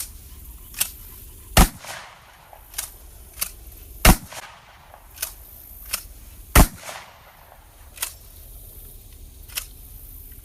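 Gunshots on a firing range from several shooters firing at irregular intervals. Three loud, close shots fall about two and a half seconds apart, among about nine fainter shots from further along the line.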